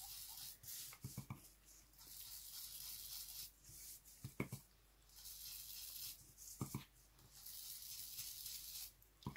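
Foam pad of an ink blending tool rubbed over paper: a faint scratchy hiss in repeated strokes, with a few light taps in between.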